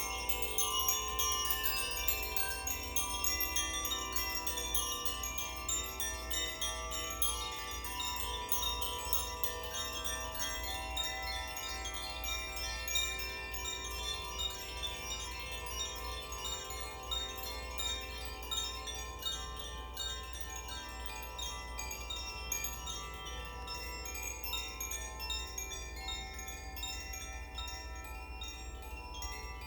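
Koshi chimes being swirled so the clapper strikes the tuned rods in rapid, irregular succession, giving dense overlapping ringing tones with bright, shimmering overtones that blend into a continuous wash.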